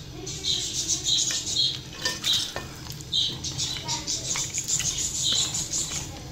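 A spatula stirs and scrapes chicken pieces around an aluminium pot with repeated scraping strokes and a few light knocks on the metal. The chicken sizzles in its oil and masala over medium heat.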